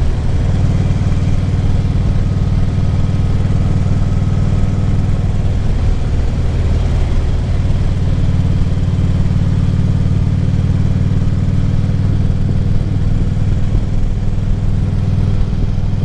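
Harley-Davidson Ultra Classic Limited's V-twin engine running steadily while riding, over wind and road noise. The engine note eases a little about six seconds in and picks up again around eight seconds in.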